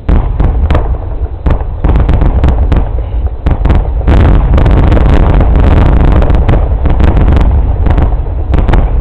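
Aerial fireworks finale: a rapid barrage of shell bursts booming and crackling over a continuous low rumble, scattered at first, packing tightly together from about four seconds in, then thinning out near the end.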